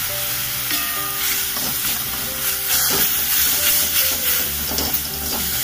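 Tomato and onion sauce sizzling in a kadhai as it is stirred with a spatula, over background music.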